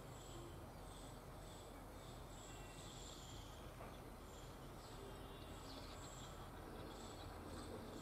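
Faint background of insects chirping in short, high-pitched pulses that repeat about once a second, over a low steady rumble.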